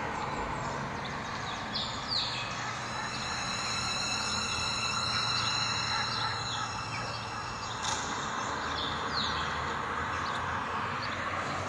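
Outdoor background ambience: a steady hiss with a few short bird chirps, and a high, steady ringing tone held for several seconds in the middle.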